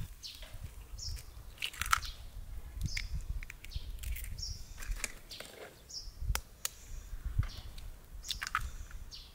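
Hands squishing and kneading wet dough mixed with egg in a plastic bowl, with a few sharp clicks. Small birds chirp briefly now and then.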